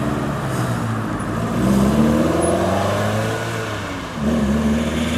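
Engine of an open-top two-seat sports car accelerating away, its pitch rising, with a brief drop in level about four seconds in before it picks up again.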